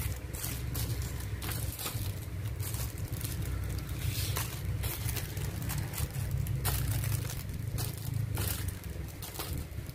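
Thin clear plastic packets crinkling and rustling in irregular crackles as small dolls sealed in them are picked up and laid out on a table, over a steady low hum.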